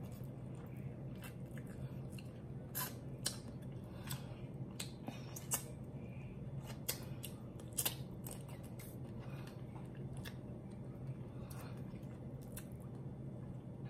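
Close-miked eating of lobster: scattered wet clicks and smacks as small pieces of lobster shell are sucked and chewed, over a steady low hum.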